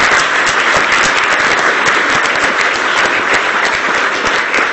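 Audience applauding: a steady, loud stretch of many hands clapping.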